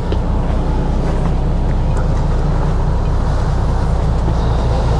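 Sunseeker 76 motor yacht's twin diesel engines idling, a steady low hum with no change in speed.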